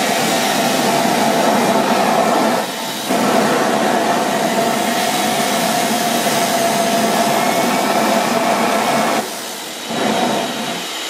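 Homemade LPG-fired turbine jet engine built from a vacuum cleaner motor, running with a steady whine over the rush of burning gas. The sound drops away briefly twice, about three seconds in and again about nine seconds in. The engine is not quite self-sustaining.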